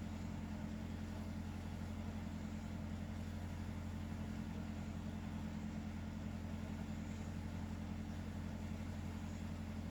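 A steady low hum that holds the same level throughout, with no breathing rhythm in it.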